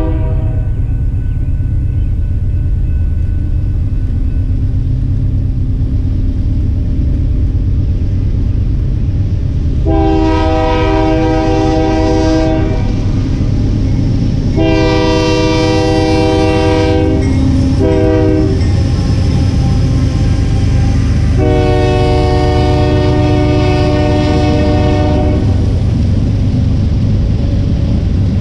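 Diesel freight locomotive's multi-chime air horn sounding the grade-crossing signal (long, long, short, long) as the train approaches, over a steady low rumble of engines and wheels on rail. Near the end the freight cars roll past close by.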